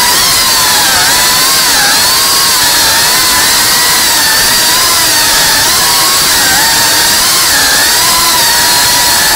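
FPV quadcopter's brushless motors and propellers whining, the pitch dipping and climbing again with each throttle change as it manoeuvres.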